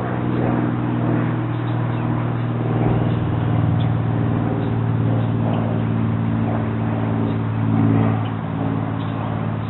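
Steady low mechanical hum of a running motor, even in pitch.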